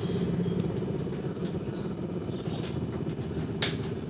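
A steady low motor hum, with short high chirps from small birds over it and one sharp click about three and a half seconds in.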